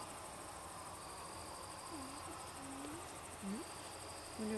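Night insects, crickets, chirring steadily: a fast-pulsing high-pitched trill, with a thinner high whistling tone that comes and goes. Faint low voices murmur briefly near the middle.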